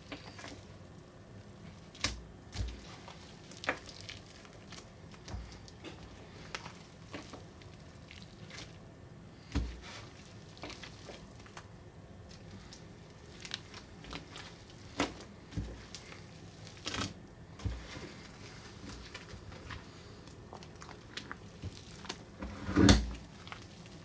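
Wet, muddy slime of a crumbled earthen excavation block being lifted by hand and dropped back into a plastic bowl: scattered squelches and plops, about ten in all, the loudest near the end.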